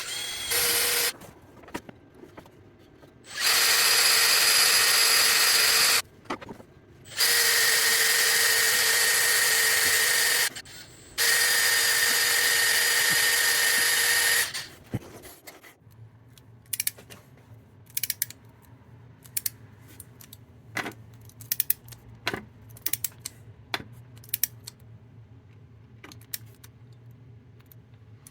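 Power drill running in three bursts of about three seconds each, with a steady whine, drilling new fixing holes into the milling machine's metal body, followed by scattered light clicks.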